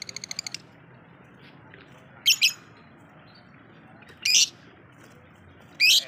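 Blue masked lovebird calling. It opens with a rapid chatter of about eight short notes, then gives loud shrill screeches: two in quick succession a little over two seconds in, a longer one past four seconds, and another near the end.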